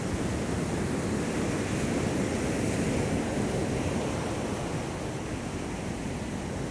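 Ocean surf breaking hard on a sandy beach: a steady rushing wash of waves that swells toward the middle and then eases a little.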